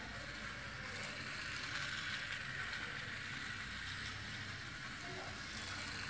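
Small DC motors and plastic gear train of a toy RC car chassis whirring steadily as the car drives across a hard floor.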